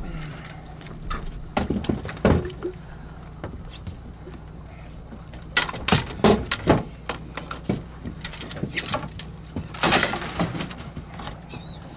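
Knocks and clatter as a landing net with a striped bass in it is hauled over the boat's side onto the deck, loudest in a cluster about six seconds in, with a short scuffle near the end. A steady low hum from the boat runs underneath.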